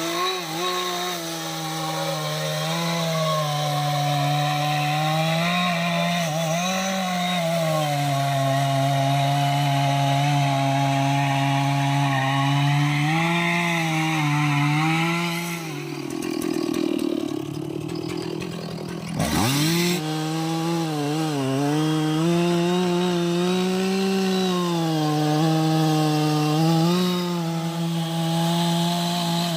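Two-stroke chainsaw running under load, cutting into jackfruit wood, its engine pitch wavering as the chain bites. About 16 seconds in the engine sags and drops off, with a brief sharp sweep near 19 seconds, then it picks up and cuts steadily again.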